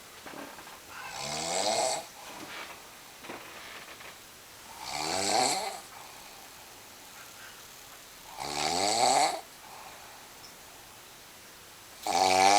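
Snoring: four loud snores about every three and a half seconds, each rising in pitch, with quieter breaths between them.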